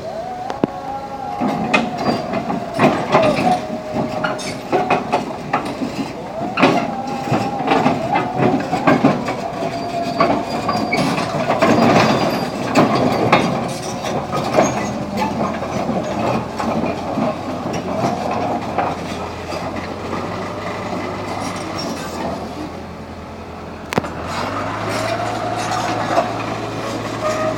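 Komatsu D31Q bulldozer driving down off a self-loader truck: its diesel engine runs underneath while the steel tracks clank and knock on metal again and again, with wavering squeals, busiest around the middle. The engine note shifts about four seconds before the end.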